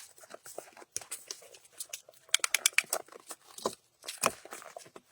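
Irregular wooden knocks, clicks and rustling as freshly sawn firewood is handled, with a quick run of small knocks near the middle and a couple of sharper knocks after it.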